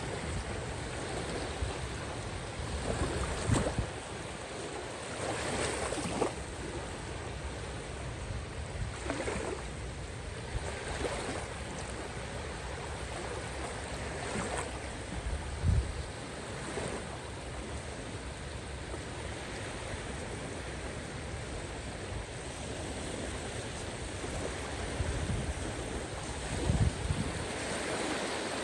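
Caspian Sea waves washing onto the shore: a continuous rush with a swell every few seconds. Twice a short, louder low thump breaks through, once about halfway and once near the end.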